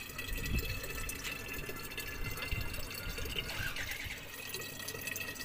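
Water running from a public water-dispensing kiosk's nozzle into a glass bottle, a steady pouring and filling sound.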